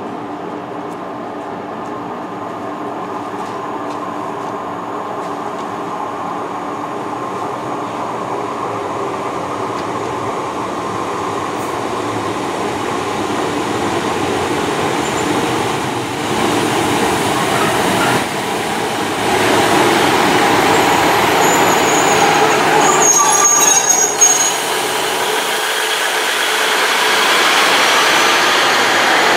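A Class 150 Sprinter diesel multiple unit runs into the station, its underfloor diesel engines droning steadily and growing louder as it approaches. A brief high squeal comes about three quarters of the way through, and the sound grows louder again near the end.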